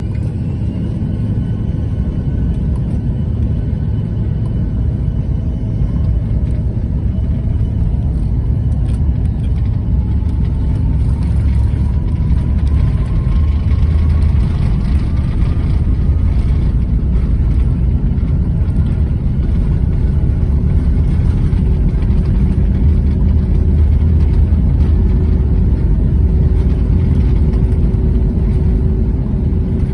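Cabin noise of a Bombardier CRJ900 on its takeoff roll: its rear-mounted GE CF34 turbofans run at takeoff power as a loud, steady rumble, with a whine rising in pitch as they spool up and the noise growing slightly louder as the jet accelerates.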